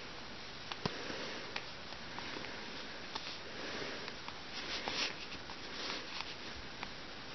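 Soft rustling of lace stockings and small clicks of hands handling a doll as the stockings are pulled up its legs, with a few brief louder rustles a few seconds in.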